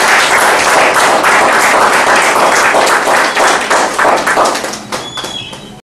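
Audience applauding, the clapping thinning out near the end before it cuts off suddenly.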